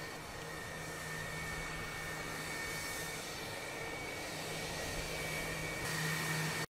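Fighter jet engines idling: a steady whine over a low hum, a little louder near the end, then cutting off abruptly.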